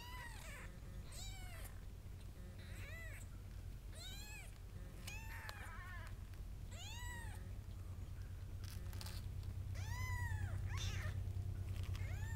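Three-day-old kittens mewing: short, high squeaks that rise and fall in pitch, about one a second. Underneath runs a low steady hum that grows louder near the end.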